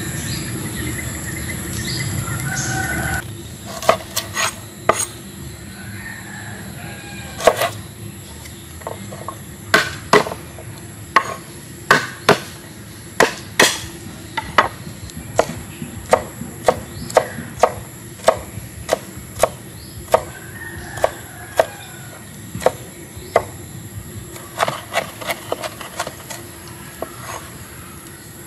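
A cleaver chopping garlic on a wooden cutting board: sharp knocks coming about one to two a second, starting about three seconds in.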